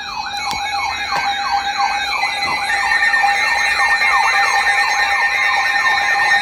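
Electronic siren yelping, a fast rising-and-falling wail repeating about twice a second over steady alarm tones.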